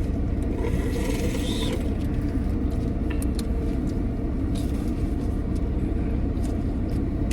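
Steady low rumble of a car, its engine running, with a few faint clicks over it.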